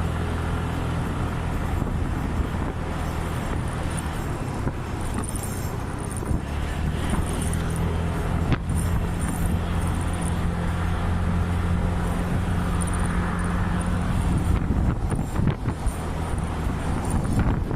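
Small scooter engine running steadily at idle, its note fuller and louder for a stretch in the middle. A single sharp click about halfway through.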